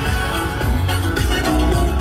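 A pop song with singing and heavy bass, playing on a car's aftermarket audio system.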